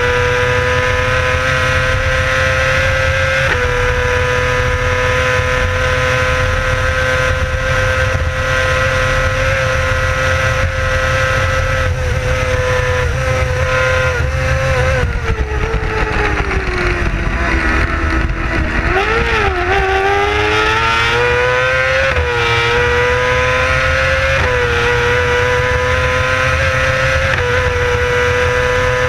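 Racing sidecar outfit's engine at high revs, heard onboard: the pitch holds near-steady with small drops at each upshift. About halfway through the revs fall away steeply as it slows, then climb again as it accelerates and runs up through the gears, with heavy wind noise on the microphone.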